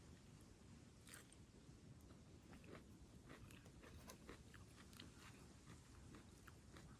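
Faint, irregular crunching clicks, several a second, over a low steady rumble.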